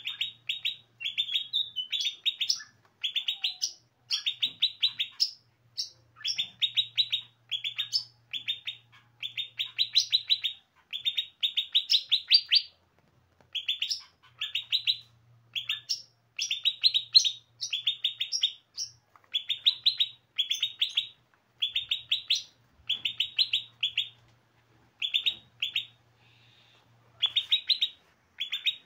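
Songbirds in an aviary chattering: short bursts of rapid, high chirping notes, about one burst a second with brief gaps.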